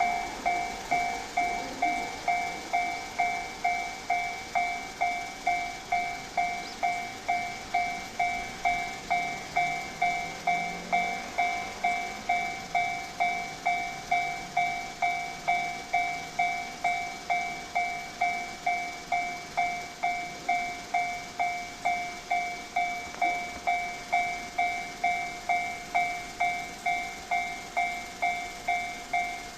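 Japanese level-crossing warning bell ringing its steady electronic clang, about two strikes a second.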